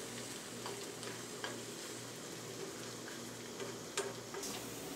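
Food sizzling softly in a nonstick frying pan while a plastic spatula stirs and scrapes it, with a few light taps of the spatula on the pan, the sharpest about four seconds in.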